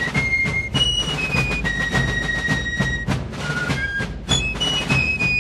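Background music: a steady, regular drum beat under a high melody of held notes.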